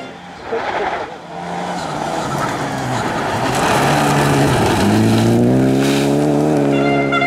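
Renault Clio rally car sliding through a gravel corner, with gravel spray and tyre noise. Its engine note drops as it comes off the throttle, then climbs steadily as it accelerates away.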